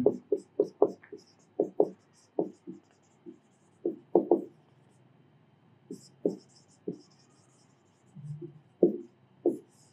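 Dry-erase marker writing on a whiteboard: a string of about twenty short squeaky strokes in irregular groups, with a pause about five seconds in.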